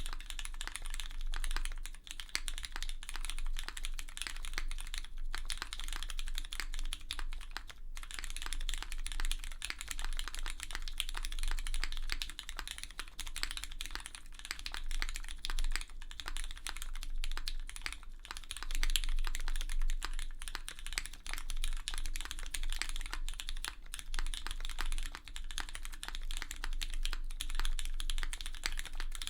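Continuous typing on a Monokei Kei mechanical keyboard with a brass bottom and full aluminium plate, fitted with broken-in, 205-lubed and filmed Cherry MX Hyperglide Brown tactile switches, TX stabilizers and case foam. It gives dense, uneven keystroke clacks, with desk resonance picked up along with them.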